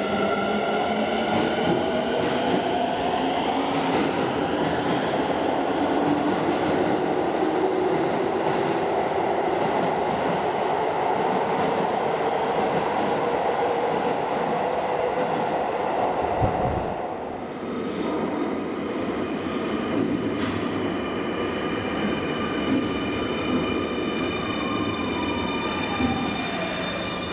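Electric commuter train in an underground station: rolling noise of the cars with a motor whine gliding in pitch, easing off about two-thirds of the way through. Near the end a motor whine falls steadily in pitch as a train slows.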